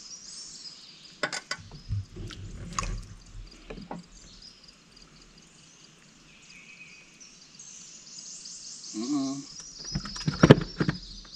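Outdoor lake ambience: birds and insects chirping steadily, broken by scattered sharp clicks and knocks, with the loudest cluster of knocks near the end.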